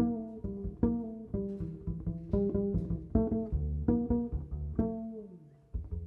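Instrumental music from a small ensemble with strings, double bass and piano: a run of short plucked or struck notes, each dying away, with one note sliding down in pitch about five seconds in.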